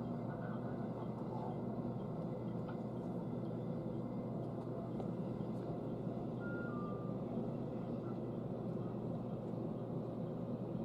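Steady hum of a stopped train carriage's onboard equipment, heard from inside, with a faint high steady tone. A short two-note beep falling in pitch comes about six and a half seconds in.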